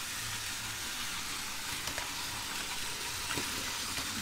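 Battery-powered Trackmaster toy trains running on plastic track: a steady whirring hiss from their small motors and wheels, with a few faint clicks.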